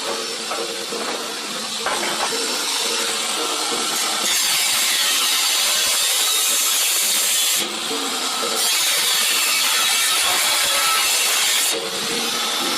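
A power cutting tool running through the steel of a car's quarter panel, a loud, steady, bright cutting noise that gets louder about two seconds in and breaks off briefly twice.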